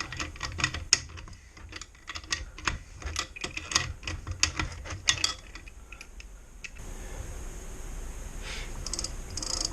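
Ratchet pawls of a newly fitted Shimano screw-on bicycle freewheel clicking irregularly as the sprocket block is turned, then a steadier faint whir for the last few seconds.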